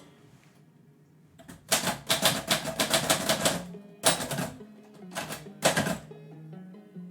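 Typewriter keys striking onto a new platen. A quick run of keystrokes starts about a second and a half in and lasts about two seconds, followed by a few more separate strikes. Background music plays underneath.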